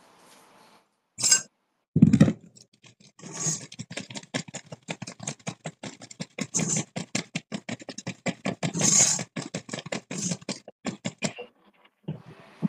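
Seasoned broccoli and carrots being shaken and tossed in a container: a fast, uneven rattle of small knocks that lasts several seconds, after a sharp knock and a heavier thud near the start.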